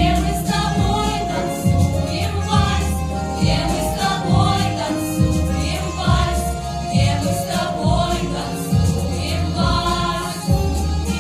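Vocal ensemble singing a song over a backing track with a steady bass beat.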